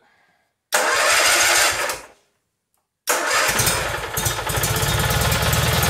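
Freshly rebuilt Kohler Magnum 18 twin-cylinder engine on its first start: the electric starter cranks it for about a second and a half and stops. About three seconds in, a second crank fires it and it catches, running steadily.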